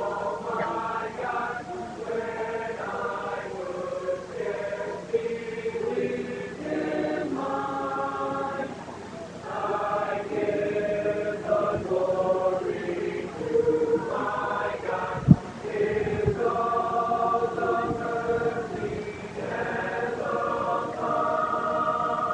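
High school marching band playing a slow, sustained chorale-like passage, full chords held and changing every second or two. A single low thump sounds about fifteen seconds in.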